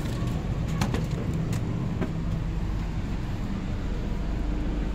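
Steady low mechanical hum of a stationary Indonesian passenger train, its power car and carriage equipment running, with a few light knocks as someone steps through the carriage's vestibule door.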